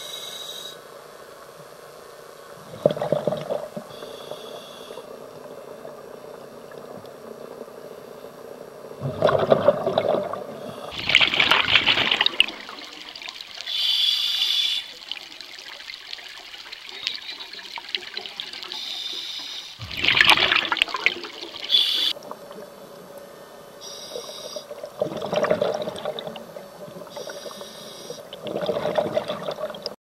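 Scuba diver breathing through a regulator underwater: a hissing draw on the inhale and a gush of exhaled bubbles, repeating every few seconds.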